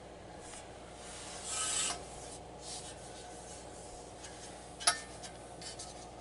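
Aluminium shower-door track hardware being handled: a short scrape about a second and a half in, then one sharp click near the end.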